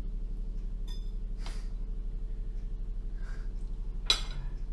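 Table knife cutting lunch meat on a ceramic plate: a brief scrape and a few light clicks, with one sharp clink near the end. Under it runs a steady low hum.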